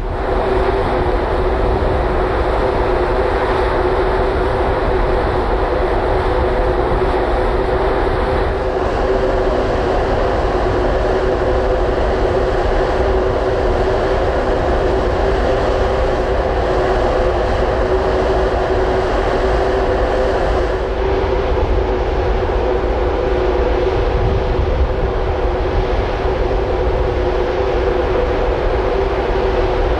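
Steady drone of a large ferry's machinery heard on the open deck: a constant two-note hum over a rushing noise. The background shifts slightly twice where the shots change.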